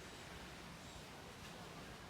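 Faint, steady wash of small sea waves on a sandy beach.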